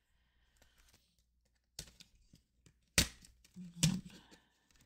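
Paper envelopes rustling faintly in a six-ring budget binder, then three sharp clicks about two, three and four seconds in, the last two the loudest, as the binder's metal rings are snapped open.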